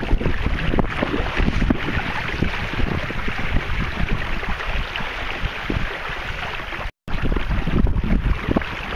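Wind buffeting the microphone over a steady rush of water as the sailing canoe moves, with a brief break in the sound about seven seconds in.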